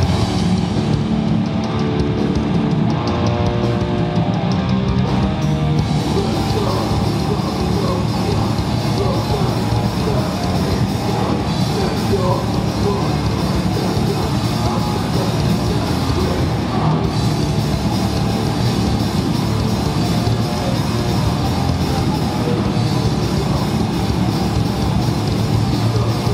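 A heavy rock band playing live through a PA: electric guitar and a drum kit. About six seconds in, the cymbals get louder and the sound fills out.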